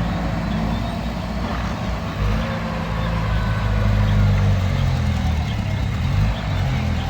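Heavy diesel engine running steadily, a low drone whose pitch shifts slightly a few times.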